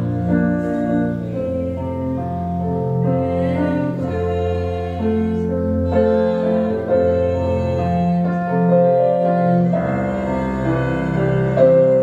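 Roland RD-700SX stage piano playing slow chords with long held notes.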